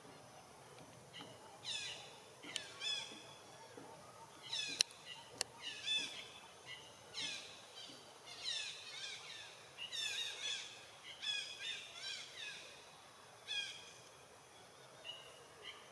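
Repeated high-pitched animal calls, each falling in pitch, coming roughly once a second over outdoor background noise, with two sharp clicks about five seconds in.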